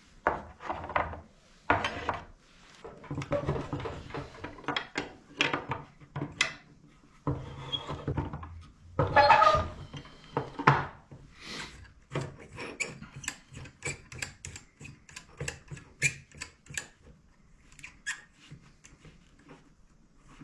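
Hand work on motorcycle suspension parts: tools and parts scraping, rubbing and clicking in irregular strokes, with the loudest scrape about nine seconds in and a run of quick light clicks from about twelve seconds.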